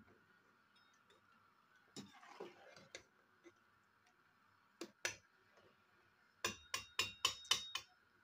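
Metal ladle knocking against the rim and sides of a metal cooking pot during stirring: a few scattered knocks, then a quick run of about eight ringing taps near the end.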